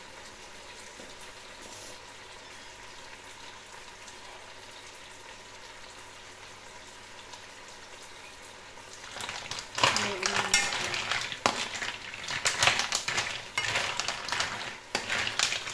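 Mussels sizzling faintly in a nonstick wok, a steady hiss. From about nine seconds in, the shells clatter and scrape against each other and the pan as they are stirred with a wooden spatula.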